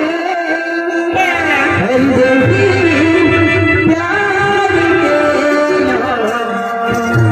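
Adivasi folk song: music with singing, a wavering melodic line over a steady accompaniment.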